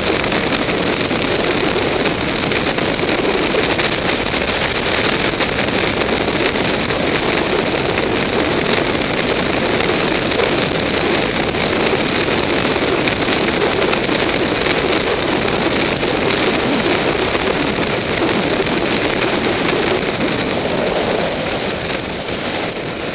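Steady wind rushing over the microphone and road noise from a Suzuki Bandit motorcycle at highway speed, easing a little near the end.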